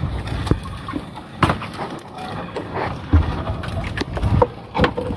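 Scattered knocks and thuds of a sinking gill net being hauled by hand into a small fishing boat, over a low rumble.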